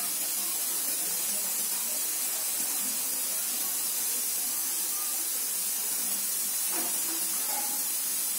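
Rolon aerosol chain lube sprayed through its nozzle onto a motorcycle chain: one continuous, steady hiss.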